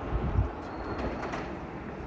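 Steady outdoor background noise on a railway platform, with a few low thumps in the first half-second and faint light clicks near the middle.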